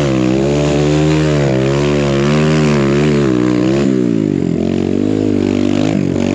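Single-cylinder four-stroke engine of a Kawasaki KLX140RF dirt bike built up to 170cc with a BBR exhaust, revving up and down under load while ploughing through deep snow. The revs drop sharply about four seconds in, then climb again.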